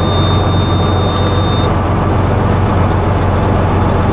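Semi-truck diesel engine idling steadily just after a cold start, heard from inside the cab.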